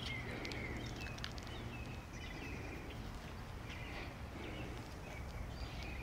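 Small birds chirping, with short trills about two seconds in and again near four seconds, over a steady low outdoor hum. There are a few faint clicks in the first second and a half.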